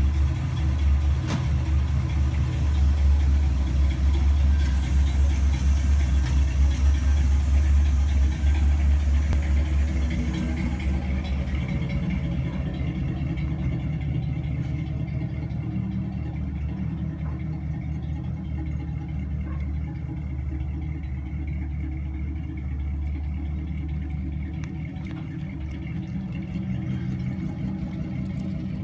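1964 Chevrolet Impala's engine running with a low rumble. The car backs out of the driveway and drives off, and the engine grows quieter about halfway through.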